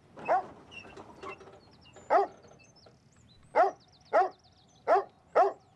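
A dog barking in single sharp barks, six of them, coming faster toward the end, with faint high twittering behind.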